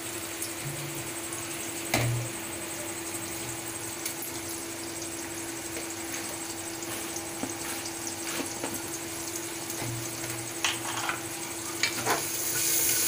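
Chopped onion and green chilli sizzling in hot oil in an aluminium pressure cooker, with a few short clicks and a steady hum underneath. The sizzle gets louder near the end.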